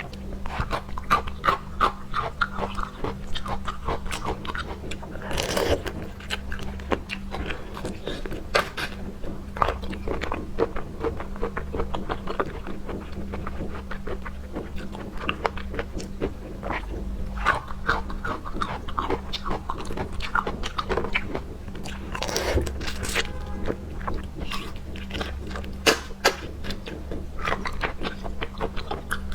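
Close-up wet chewing and lip-smacking of a mouthful of seafood: many quick smacks and crunchy clicks in an uneven rhythm, with a couple of longer slurping noises. A steady low hum runs underneath.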